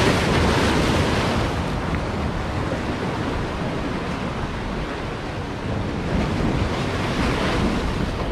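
Surf breaking and washing against the boulders of a rock jetty, with wind buffeting the microphone. The rush of water is loudest in the first second and swells again about six to seven seconds in.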